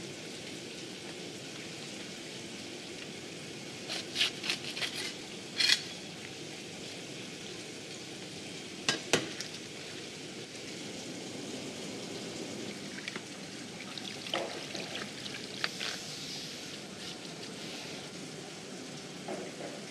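Knife cutting through a bluefin tuna: scattered sharp clicks, taps and scrapes of the blade against bone and the cutting board, in clusters about four, nine and fifteen seconds in, over a steady hiss of background noise.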